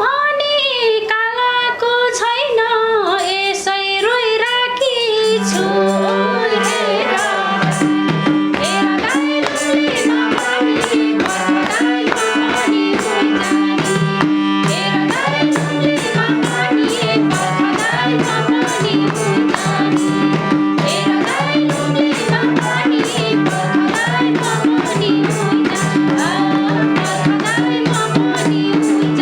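Nepali dohori folk music, an instrumental passage. A bending melodic line opens it, then held notes run over a quick, steady drum beat.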